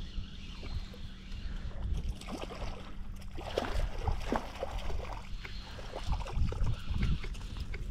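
Hooked garfish splashing and thrashing at the surface in shallow water, a burst of splashes about three and a half to five seconds in. Under it runs a steady low rumble of wind on the microphone.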